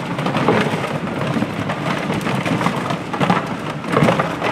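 Hollow plastic duck decoys clattering and knocking together as a bunch of them is handled on their cords, with heavier knocks about three and four seconds in.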